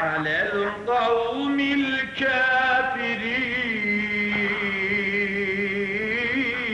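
A man singing a Middle Eastern-style melody. The notes slide and are ornamented at first, then from about halfway he holds one long note with vibrato.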